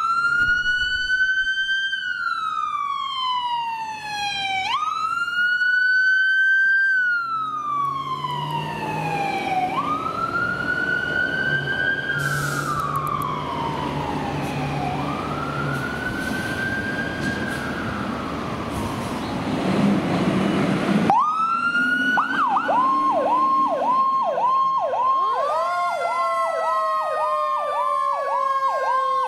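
Fire department vehicles' electronic sirens on a wail, each slow rise and long fall taking about five seconds. About two-thirds through, the sound changes suddenly to a fast yelp at about two cycles a second, with a second siren's slowly falling wail over it.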